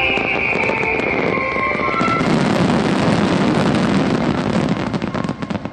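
Fireworks display: a high whistle sliding slowly down in pitch fades out about two seconds in. Dense crackling from crackling-star bursts then fills the rest, over a low rumble, and cuts off abruptly just before the end.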